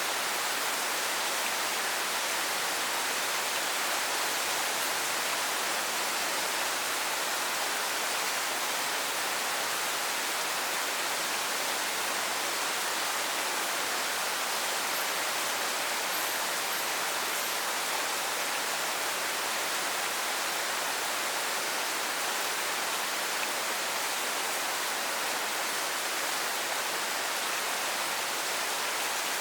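Steady rain falling, an even hiss that holds at the same level without a break.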